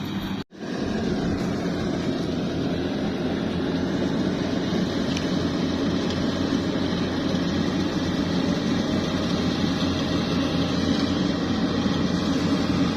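Yanmar AW70V combine harvester's diesel engine running steadily at working speed, with a brief break in the sound about half a second in.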